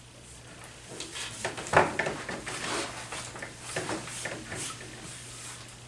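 Scattered rustling and knocking handling noises over a steady low hum, with one louder knock a little under two seconds in.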